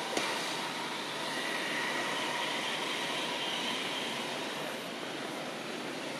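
Steady outdoor background hiss with faint high steady tones in it, and one short click just after the start.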